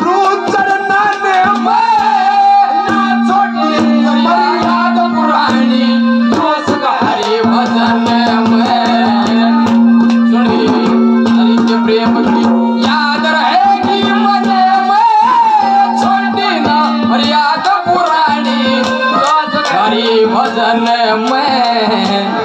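Haryanvi ragni folk accompaniment playing an instrumental passage: a wavering melody over a steady held drone note, driven by rapid hand-drum beats.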